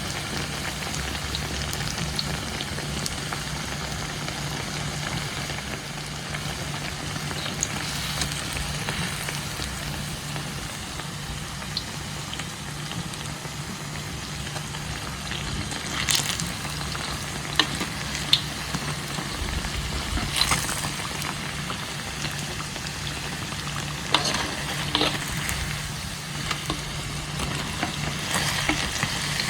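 Banana fritters (pisang goreng) deep-frying in hot oil, a steady sizzle, with a few sharp clicks scattered through it and a steady low hum underneath.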